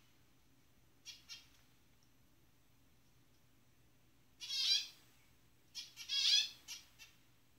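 Zebra finches calling: two short soft calls about a second in, then a louder, longer call around the middle, followed a second later by a cluster of several more calls.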